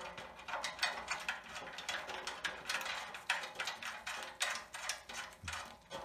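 Ratchet wrench clicking in short irregular runs, about three to four clicks a second, as it runs plain M8 nuts onto the mounting bolts of a steering rack plate.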